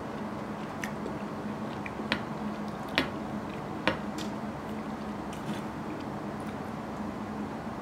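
Quiet chewing, and a metal spoon clinking against a ceramic bowl three times between about two and four seconds in, over a steady low hum.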